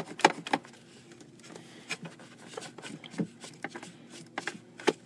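Irregular light clicks and rubbing from a hand and tool working in the rear mounting screw of the blend door actuator behind the dash plastic. The clicks are thickest in the first second and again near the end, over a faint steady hum.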